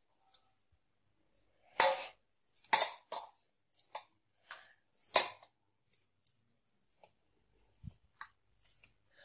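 Hands pressing and gathering stiff dough on a steel plate: irregular short scrapes and knocks against the metal, the loudest about two and five seconds in.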